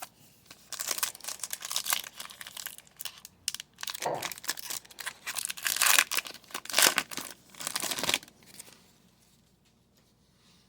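A trading-card pack's wrapper being torn open and crinkled by hand, in a run of crackling tears that stops about eight seconds in.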